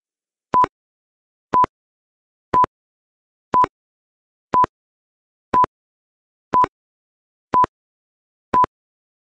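Countdown timer beeping once a second: nine short electronic beeps of the same pitch, with silence between them.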